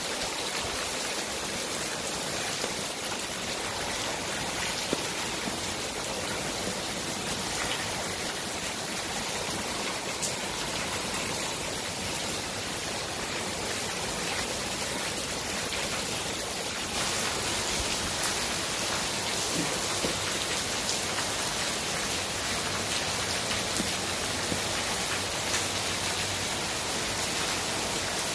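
Torrential rain falling steadily in a dense, even hiss, growing slightly louder about halfway through.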